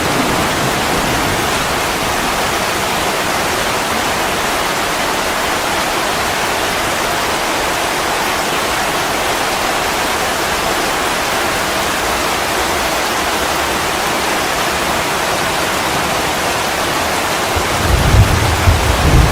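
Steady rain, an even hiss of falling drops throughout. A louder low rumble comes in near the end.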